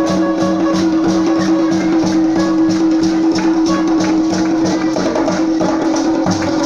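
Music for the Bagisu Imbalu dance: a fast, even percussion beat of about four strokes a second over a steady held tone.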